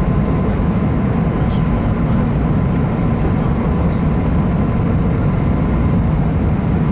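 Airbus A320 cabin noise heard from a window seat: a steady, even rumble of the engines and rushing air, with a faint thin whine.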